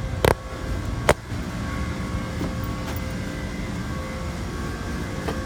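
Steady hum of running refrigeration machinery, with two sharp knocks about a quarter second and a second in.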